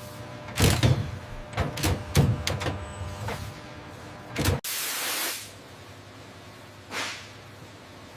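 Assembly-line work sounds: a run of knocks and clanks, then a heavier thud that stops abruptly about four and a half seconds in. A short burst of hissing follows, and a fainter hiss comes near the end.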